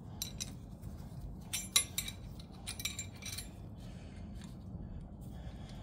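Steel hand tools clinking and tapping against a brake rotor and hub as a combination wrench and a screwdriver are fitted to loosen the rotor retaining screw: scattered clinks in small clusters, the sharpest about two seconds in.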